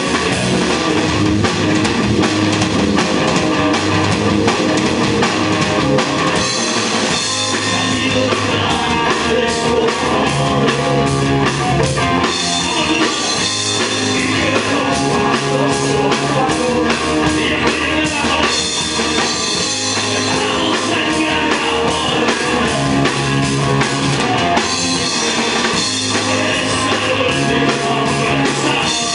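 Live rock band playing loudly: drum kit, electric guitars and bass.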